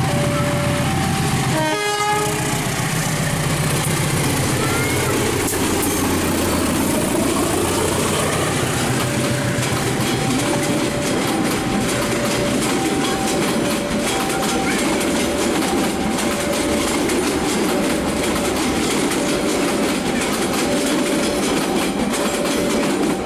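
A diesel locomotive and its passenger coaches passing: the engine runs heavily for the first few seconds, with a brief horn toot about two seconds in. Then comes the steady rumble and clatter of coach wheels on the rails. Under it all a two-tone level-crossing warning alarm alternates between a higher and a lower note.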